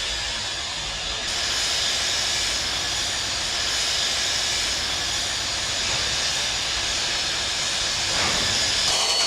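Dubbed-in railway sound effect: a steady rushing hiss of a train running, changing character a little after a second in and again near the end.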